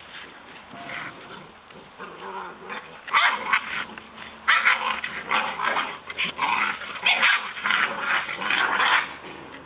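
Seven-week-old foxhound puppies play-fighting, growling at each other in a run of short, loud bursts that starts about three seconds in.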